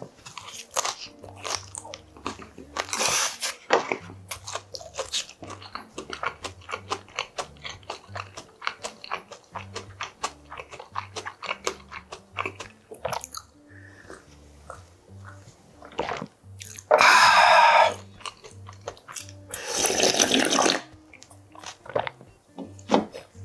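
Close-miked eating of cold noodles: steady smacking, chewing and slurping of naengmyeon, with two long, loud slurps of broth from the bowl in the last seconds. Soft background music runs underneath.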